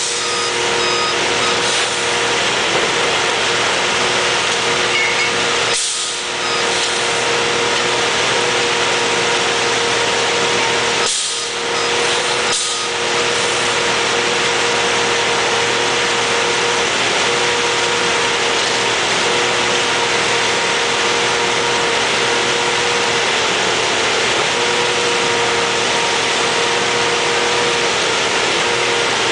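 Engine and hydraulics of a rail-mounted tie inserter running hard as it works a new crosstie under the rail, with a steady whine over a dense mechanical din. The sound dips briefly twice.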